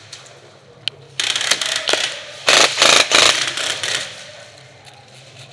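Airsoft guns firing two rapid rattling bursts, one starting just after a second in and one about two and a half seconds in, each under a second long, after a single click.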